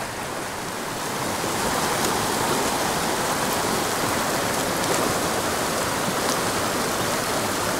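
Rushing water of a small mountain pocket-water creek, a steady flow that grows a little louder about a second in.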